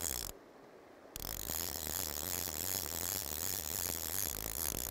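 Steady rush of a shallow stream running over a riffle. The sound drops away for under a second near the start, then returns.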